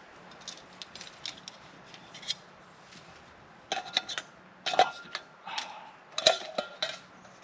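Metal camping pots and cups clinking and scraping as they are handled, with light clicks at first and several louder, sharper clinks that ring briefly in the second half.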